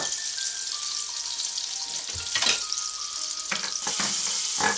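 Butter and olive oil sizzling steadily in a hot ribbed grill pan, with a wooden spatula knocking and scraping against the pan several times as it spreads the fat.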